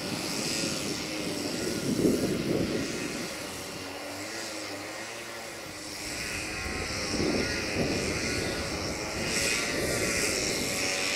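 A train running with a steady mechanical drone and hum, swelling and easing a little.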